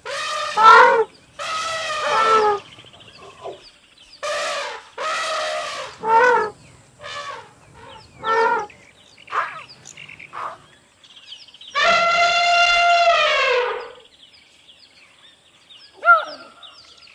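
Elephants trumpeting: a string of short trumpet calls, then one long call about twelve seconds in that drops in pitch as it ends.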